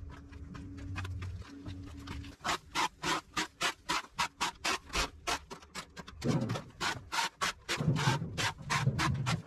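Plastic leaf rake scraping dirt and dead grass across a paved path in quick strokes, about three or four a second. The strokes begin a couple of seconds in and grow heavier near the end.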